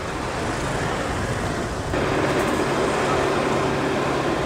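Street noise with a vehicle engine running. About two seconds in it becomes a louder, steadier engine hum.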